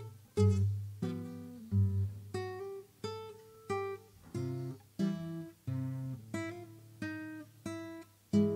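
Solo acoustic guitar playing a slow melody of single plucked notes, each ringing and fading, over low bass notes.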